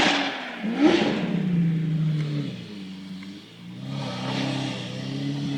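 High-performance sports car engine revving hard and accelerating, its pitch climbing and stepping down through gear changes, with a loud burst at the start and the engine coming back up again near the end.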